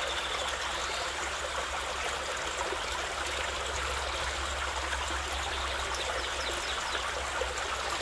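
Steady rush of running water, a stream-and-waterfall sound effect, with a low steady hum beneath it.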